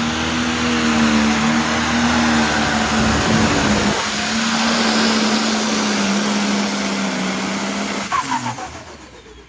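Pro stock pulling tractor's turbocharged diesel engine running flat out under the load of the sled, a loud steady drone. About eight seconds in the engine is throttled down at the end of the pull and the sound falls away.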